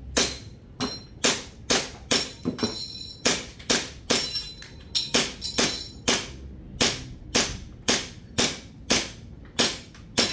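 Army Armament R27 1911 gas blowback airsoft pistol firing on green gas: about twenty sharp shots at roughly two a second, each with the slide cycling. It fires until the magazine runs out of BBs and the slide locks open.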